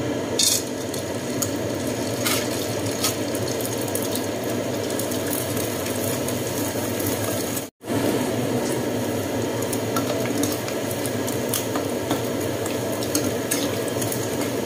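Krupuk crackers frying in hot oil in a wok, the oil sizzling and bubbling steadily as they puff, with a few light taps of a metal spatula against the wok. The sound cuts out for a moment about two-thirds through.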